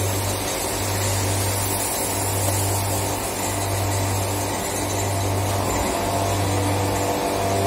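Steady drone of plastics factory machinery: a constant hiss with several steady tones, over a low hum that dips briefly about every second and a quarter.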